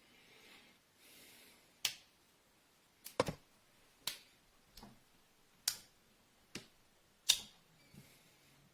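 Sharp clicks and snaps, about ten of them at irregular intervals, a few coming in a quick cluster, after some soft rustling at the start. This is a folding 15-in-1 pocket multi-tool being handled, its metal parts clicking.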